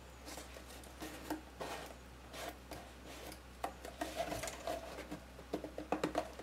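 Cardstock being handled as a paper trim band is wrapped and pressed around a paper box: irregular rustling and light taps, over a faint steady low hum.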